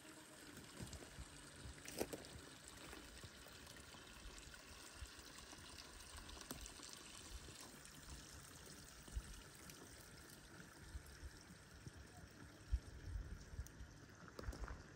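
Faint, steady trickle of running water, like a small stream, with a few low bumps near the end.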